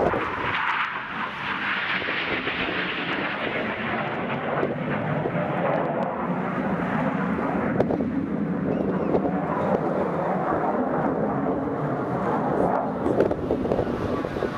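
Jet noise from an RAF BAE Hawk T1 trainer's Rolls-Royce Turbomeca Adour turbofan flying overhead, a steady rushing roar. After a few seconds the hiss fades and a duller roar remains as the jet draws away.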